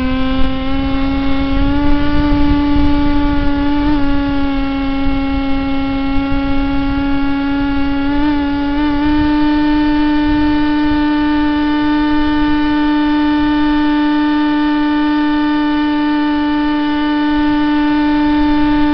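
Radio-controlled model plane's motor and propeller heard from on board: a steady, high whine whose pitch steps up slightly about eight seconds in and then holds, over wind rumble on the microphone.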